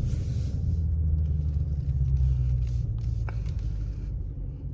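Dodge Scat Pack's 392 HEMI V8 running at low revs, a steady deep rumble heard from inside the cabin as the car creeps along at walking pace.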